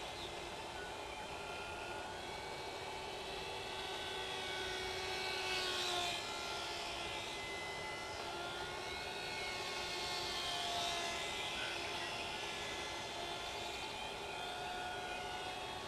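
Brushless electric motor and propeller of a Graupner Nemesis micro RC plane whining in flight, the pitch sweeping up and down as it passes, loudest about six seconds in and again about eleven seconds in.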